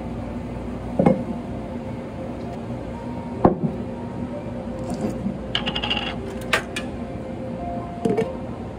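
Cafe crockery and utensils being handled: separate knocks about a second in, midway and near the end, with a quick run of small ringing clinks a little past the middle.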